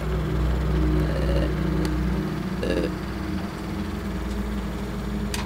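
Electric desk fan running with a steady low hum, a few short pitched sounds over it.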